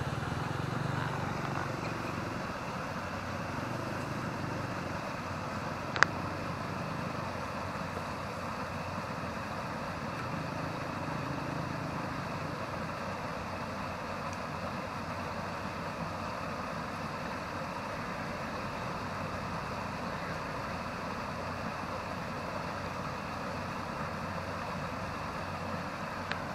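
A steady, even engine hum in the background, with a single sharp click about six seconds in.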